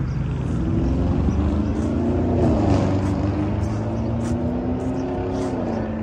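A motor vehicle's engine running as it travels along the street, a steady hum that grows louder toward the middle and drops slightly in pitch near the end.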